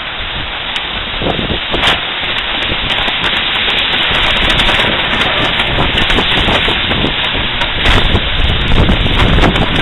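Heavy rain and strong gusting wind, with the wind buffeting the microphone; the low rumble of the gusts is loudest near the end.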